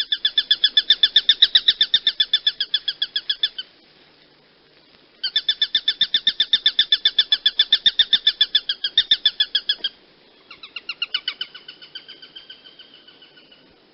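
Hawk calling: three long series of rapid, evenly repeated high notes, about eight a second, with short pauses between them; the last series is weaker and trails off.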